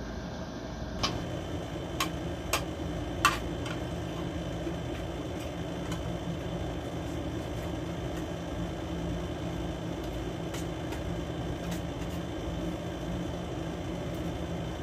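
A steady machine hum like a room air conditioner or fan, with four sharp clinks of spoons against metal plates in the first few seconds, the last the loudest, and fainter taps of cutlery later.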